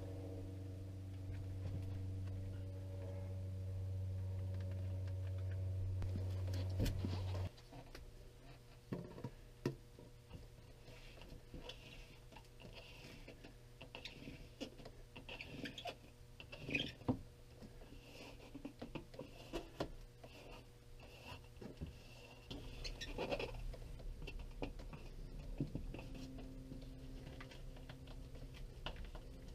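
Faint crinkling, rustling and small clicks of peel-and-stick vinyl mosaic backsplash tile sheets being handled, peeled and pressed flat onto a wall. A steady low hum runs underneath at first and stops suddenly about seven seconds in.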